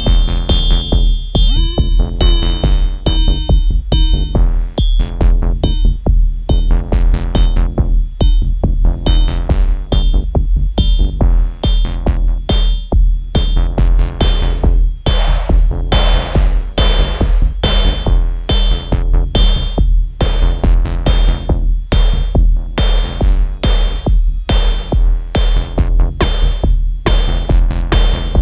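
Electronic music with a drum-machine beat and sustained synthesizer tones; the beat's hits grow denser and brighter in the second half.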